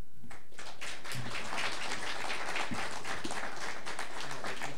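Audience applauding, a dense patter of many hands clapping that starts about a third of a second in.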